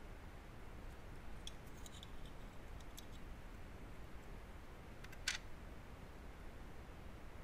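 Faint light clicks of steel tweezers and a small metal washer against the metal chassis of a Beogram turntable as the washer is set into the transport-lock hole. There are a few soft ticks in the first three seconds and one sharper click about five seconds in, over a faint steady low hum.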